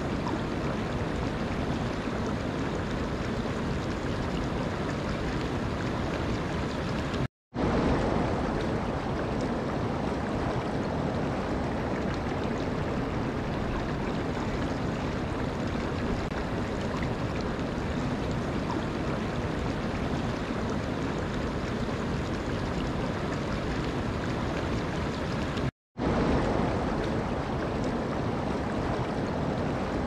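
Steady rush of shallow water flowing and rippling over stones. It cuts out to silence for a split second twice, about 7 and 26 seconds in, and comes back slightly louder each time.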